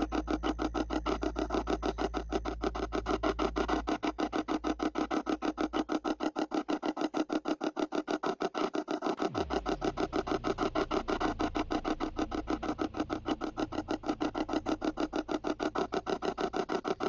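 Spirit box radio sweeping up through the FM band, giving a rapid, even chopping of static and snatches of station noise.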